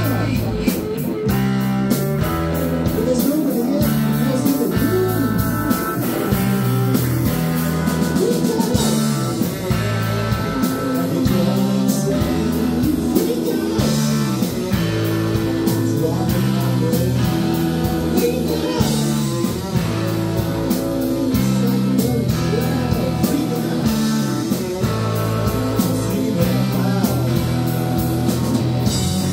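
Live rock band playing loud: electric guitars and bass guitar over a steady beat.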